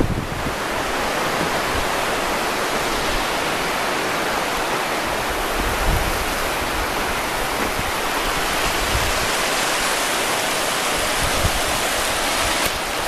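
River water rushing over shallow riffles, a steady even rush, with a few faint low thumps now and then.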